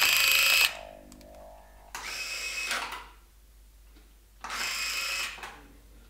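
Small DC motor of a salvaged DVD laser-sled mechanism whirring in three short runs of under a second each, sliding a barrel bolt back and forth; the first run is the loudest.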